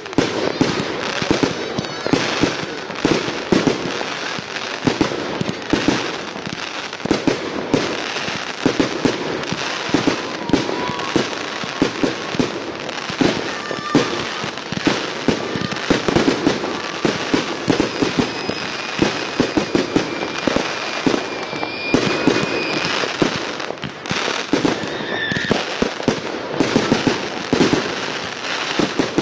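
Fireworks display at full barrage: shell bursts and crackling stars popping and banging in a dense, continuous stream, many reports every second.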